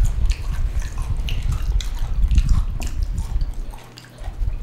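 Close-miked chewing with wet mouth clicks and smacks, coming irregularly over a low rumble.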